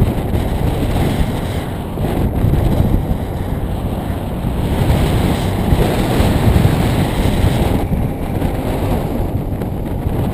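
Wind buffeting on the microphone of a camera moving along a road: a loud, dense, low noise that swells and dips, with no clear engine tone.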